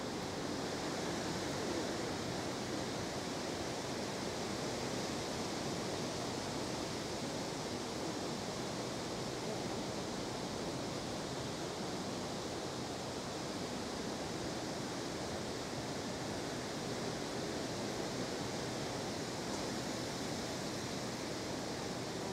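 Steady outdoor background noise: an even rush with no distinct events.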